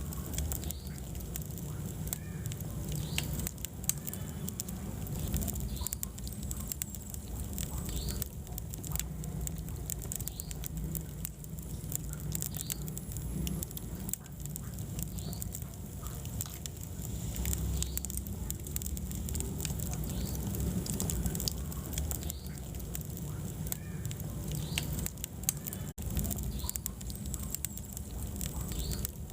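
Wood fire burning in a fireplace: a steady low rumble of flames with frequent small crackles and pops, and a split-second dropout near the end.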